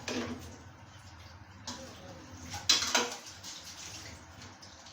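A stirring utensil clinking against a cooking pot a few times, the loudest strike about three seconds in, with quieter stretches between.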